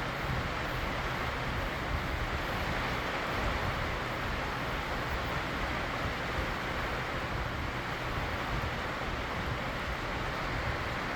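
Steady, loud rushing noise with a low rumble underneath, from a thunderstorm.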